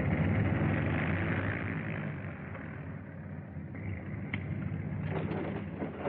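Twin radial engines of a Boeing 247 airliner running as it arrives at the gate, a steady rumble that slowly dies away, heard on a thin old film soundtrack. A few short knocks near the end.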